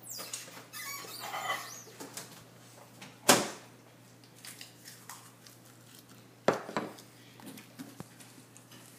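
Kitchen handling clatter from a microwave oven door and a plate being moved: faint squeaks in the first two seconds, then two sharp knocks about three seconds apart.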